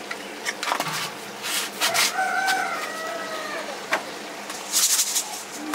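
A rooster crowing once, a single drawn-out call of just over a second starting about two seconds in, among a few sharp clicks and knocks.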